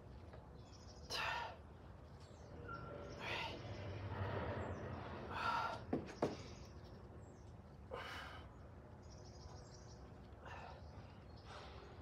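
A man's hard exhales during triceps reps on gymnastic rings, one breath about every two seconds, with two sharp clicks a little past the middle.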